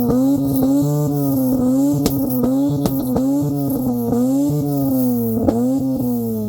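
Mazda RX-7 FC's rotary engine held on a two-step launch limiter, its revs bouncing up and down about twice a second with sharp exhaust pops and cracks now and then.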